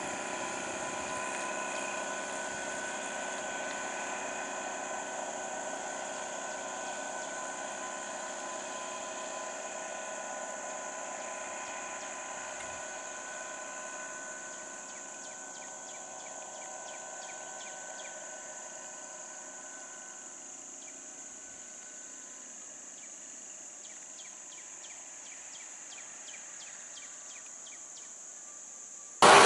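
Steady roadside ambience: a constant high insect drone with the hum of idling vehicle engines under it, slowly fading. A sudden much louder noise cuts in at the very end.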